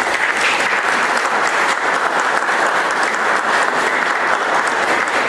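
Audience applauding steadily, a sustained patter of many hands clapping at the end of a talk.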